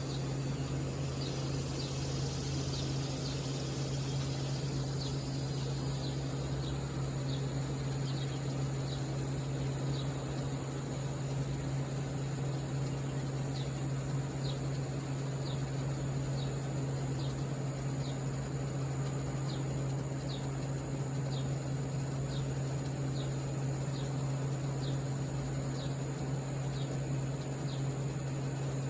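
Outdoor summer ambience: a steady low hum and a steady high insect drone, with a short high chirp repeating about once a second.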